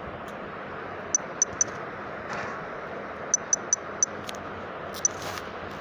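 Steady hiss with eight short, high clicks: three about a second in, four more in quick succession around three and a half seconds in, and one near the end.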